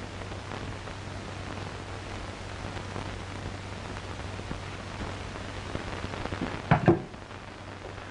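Steady hiss and low hum of an old film soundtrack, broken near the end by a loud, sharp double thump.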